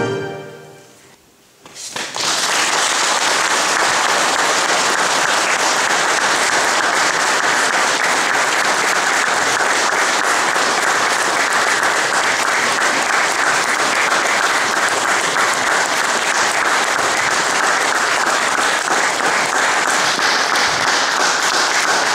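The last sung chord of a men's vocal ensemble dies away in the church's echo, then about two seconds in an audience breaks into steady applause.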